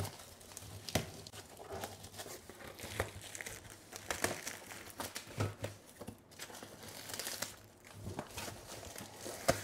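Plastic shrink wrap crinkling and tearing as it is pulled by hand off a cardboard box, in irregular crackles with small knocks.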